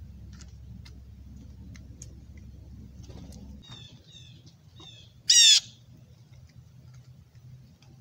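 Blue jay calling: a short series of quick, high, downward-sliding notes, then one loud harsh call about five seconds in.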